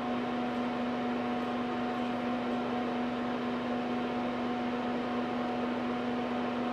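Steady electrical hum with a fainter higher tone over an even hiss, from the running bench electronics, the Bertan high-voltage power supply among them; it holds unchanged while the voltage is turned up.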